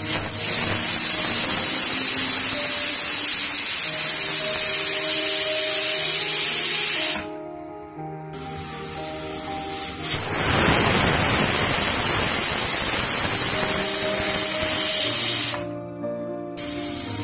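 Stovetop pressure cooker venting steam through its weighted whistle valve: a loud steady hiss that drops away about seven seconds in, then starts up again for another five seconds or so.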